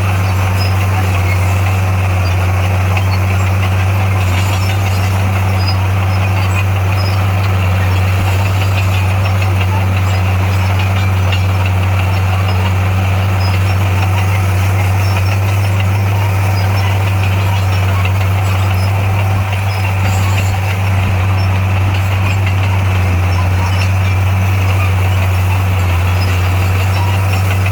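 Heavy diesel engine of earthmoving equipment running steadily, with a deep, unchanging drone.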